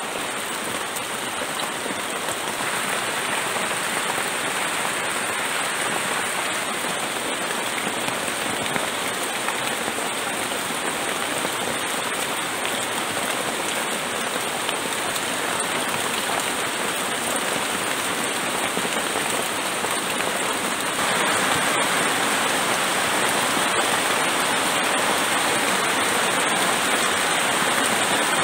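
Heavy rain falling steadily on a leaf-thatched and tarp-covered shelter, a dense even hiss of drops that grows a little louder about three quarters of the way through.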